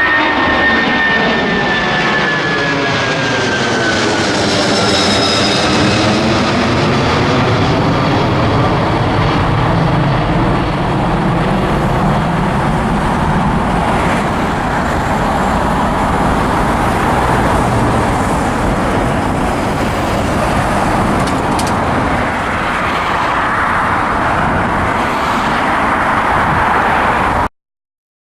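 Jet airliner engines passing close by: a high whine falls in pitch over the first few seconds as the aircraft goes past, leaving a loud, steady engine rumble. The sound cuts off abruptly near the end.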